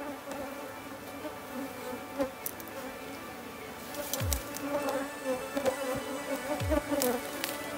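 Honeybee colony buzzing in a steady drone from comb packed inside a wooden tool box. Scattered sharp ticks, thicker in the second half, and a few brief low falling sounds come through the buzz.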